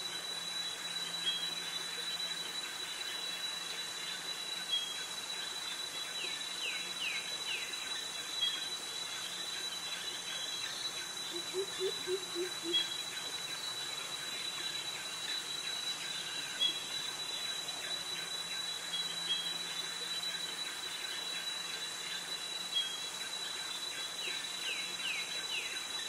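Cicadas and crickets singing: a steady high-pitched whine that never breaks. A few short quick chirps come twice, and a brief run of about four low notes comes about halfway.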